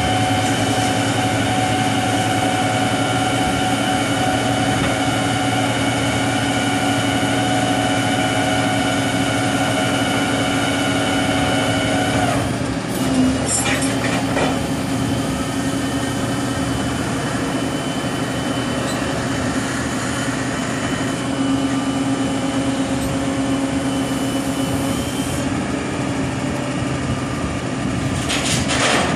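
Rollback tow truck's engine running with its hydraulics engaged: a steady hum with a pitched whine over it as the winch draws a compact tractor up the tilted bed and the bed is brought back level. About halfway through come a few knocks, and the whine changes.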